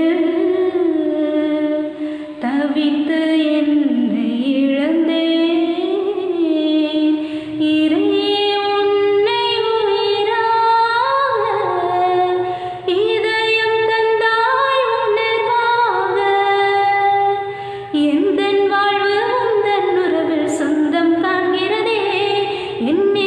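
A woman singing solo and unaccompanied, in phrases of about five seconds with brief breaks between them.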